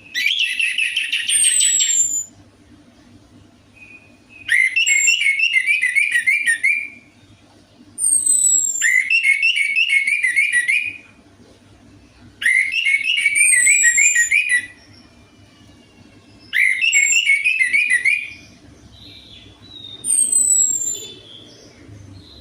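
Orange-headed thrush song: six phrases of fast warbled notes mixed with high, falling whistles, each about two seconds long with short pauses between.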